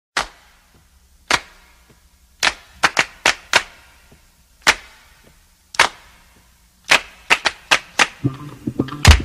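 A series of single sharp knocks echoing in a large room, about a second apart at first, then coming faster near the end.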